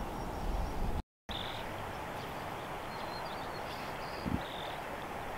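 Steady rush of river water flowing over riffles, with wind buffeting the microphone low in the first second. The sound cuts out completely for a moment about a second in, and a few faint high chirps come through in the middle.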